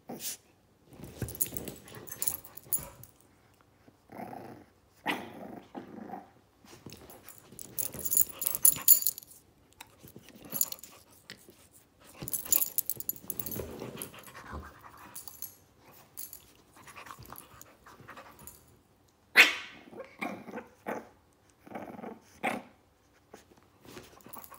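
A Shih Tzu puppy and a pit bull play-wrestling: play growls in irregular bursts, with rustling and scuffling against the couch and blanket, and one short, sharp bark about two-thirds of the way through.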